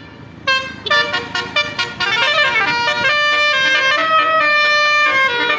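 Aneka Bintang bus's basuri 'telolet' musical horn: a single short toot, then a quick run of short toots about a second in, then from about two seconds in a continuous tune of changing notes.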